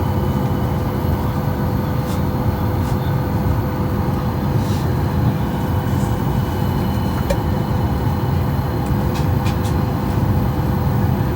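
Steady low hum of an airliner cabin while the plane waits on the ground before takeoff, with a faint held tone and a few faint clicks.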